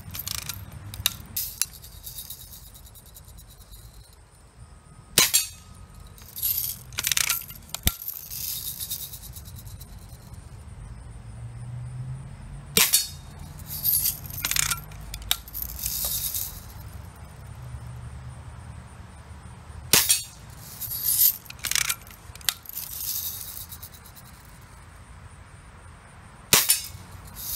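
Daisy Red Ryder lever-action spring BB gun being cocked and fired repeatedly: several sharp clacks and snaps in small groups a few seconds apart. They come from the cocking lever, the spring-air shots, and BBs pinging off a steel target.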